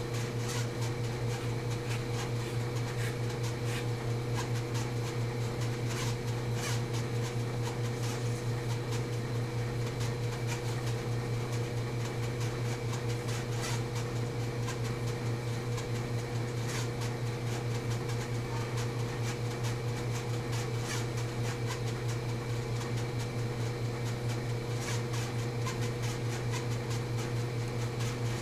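Steady low machine hum, like a fan or motor, with faint scattered ticks over it.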